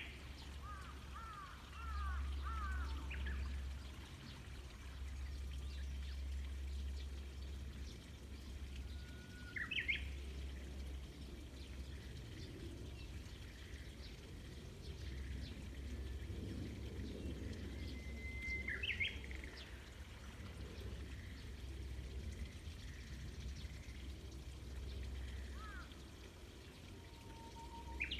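Japanese bush warbler (uguisu) singing its song: a long held whistle that breaks into a quick rising flourish, repeated about every nine seconds, with a short run of falling notes near the start. A steady low rumble runs underneath.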